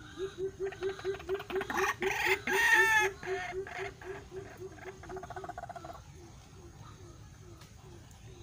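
White-breasted waterhen calling: a steady run of low hooting notes, about three to four a second, with a loud harsh croaking call over them from the start until about six seconds in, loudest around the middle. This is the caged decoy bird calling to draw wild waterhens to the trap.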